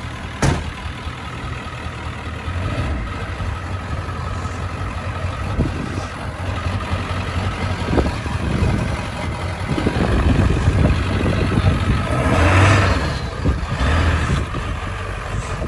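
A 1999 Ford pickup's 7.3 Powerstroke turbo-diesel V8 idling with a lope from its chip tune. A door slams shut about half a second in. Over the last few seconds the engine revs louder as the truck pulls away.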